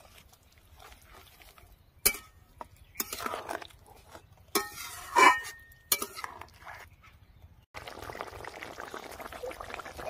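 A spatula knocking and scraping against an aluminium kadai as a fish curry is stirred, a few sharp knocks, the loudest about halfway through. Near the end the rui fish kalia starts bubbling steadily at the boil, beginning suddenly.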